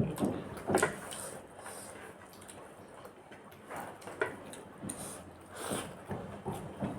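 Soft, scattered eating sounds at a meal: chewing, with food and hands or utensils moving on a plate in short irregular bursts.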